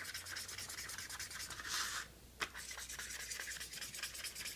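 Fast back-and-forth scribbling as a paper plate is coloured in. It pauses briefly about two seconds in, ends that pause with a single tap, then carries on.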